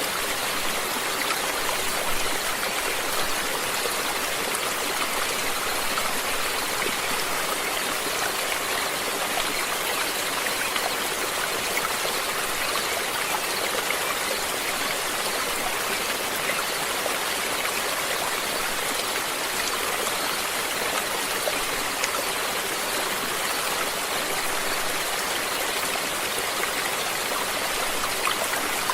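Running water of a stream, a steady, even rush and splash.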